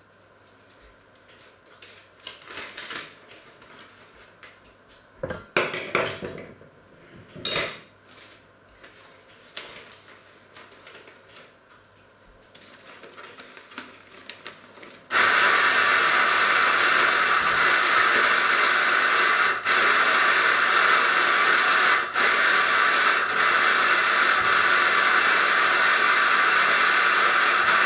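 A few light knocks and clatters of kitchenware. About halfway through, a loud steady hiss starts abruptly and becomes the loudest sound.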